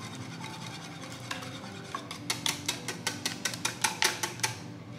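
Wire whisk beating eggs into melted butter and chocolate in a glass bowl, its wires clicking quickly against the glass, with the clicks coming thickest in the second half.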